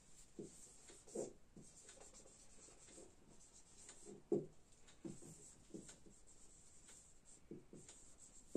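Felt-tip marker writing on a whiteboard: faint, irregular short strokes and squeaks, with one sharper tap about four seconds in.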